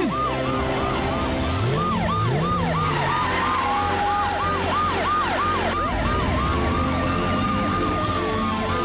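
Cartoon emergency-vehicle sirens: a fast yelp of about three falling whoops a second, switching about six seconds in to a slow wail that rises and then falls, over background music.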